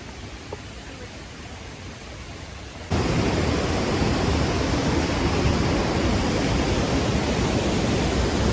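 Rushing water of a waterfall: a steady noise that suddenly becomes much louder about three seconds in.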